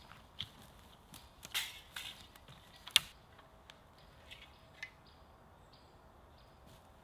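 Handling of cut wooden poles: rustles and light knocks as they are gathered and lifted onto a shoulder, with footsteps crunching through dry bracken and twigs. One sharp wooden knock about three seconds in is the loudest sound.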